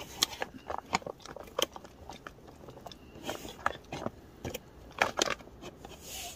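Foil pouch of a freeze-dried outdoor meal crinkling as fingers work its resealable zip seal along the top: a string of irregular small clicks and crackles.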